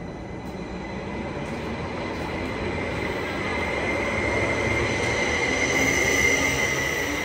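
Greater Anglia Stansted Express electric train pulling out of the platform. A steady high whine from its motors grows louder as it gathers speed, over the rumble of its wheels on the rails.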